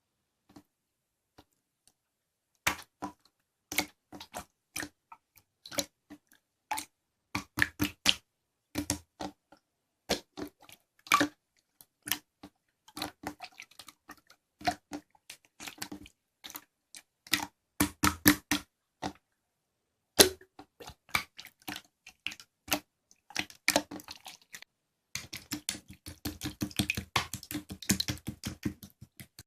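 Irregular short clicks and taps, several a second, with one sharper, louder click partway through and a fast, dense run of clicks near the end.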